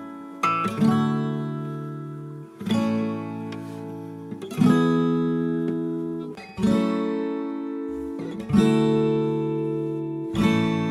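Background music on acoustic guitar: a chord strummed about every two seconds, each left to ring and fade before the next.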